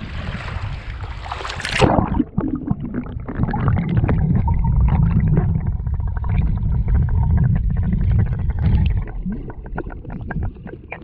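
Wind and water at the surface, then a splash about two seconds in as the camera goes under the water; from then on the sound is muffled and underwater: a heavy low rumble with many small clicks and crackles of moving water.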